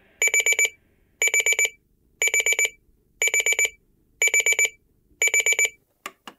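Grundig clock radio alarm beeping: groups of four quick, high beeps repeating about once a second, six times. Near the end the beeping stops and two short knocks follow as a hand slaps down on top of the clock to silence it.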